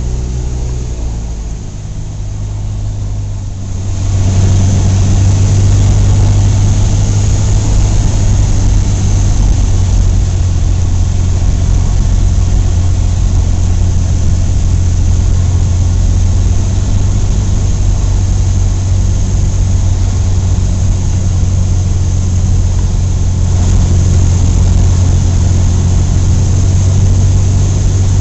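Cessna 172's piston engine and propeller droning steadily; the power comes up about four seconds in, after which the drone holds at a steady level.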